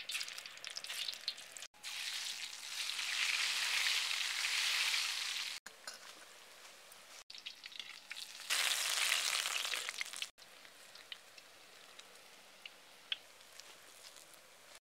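Banana bonda (batter-coated banana balls) deep-frying in hot oil in an iron kadai: a hissing sizzle that swells loud twice, with quieter crackling and popping between.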